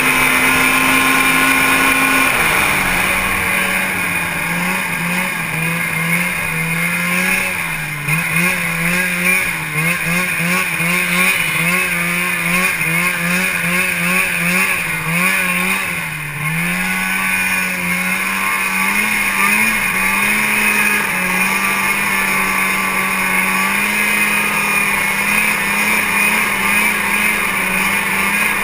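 Arctic Cat snowmobile engine running under the rider, heard from on board. Its pitch drops about two seconds in, wavers up and down with the throttle for a dozen seconds, then settles into a steady cruise, over a constant high whine.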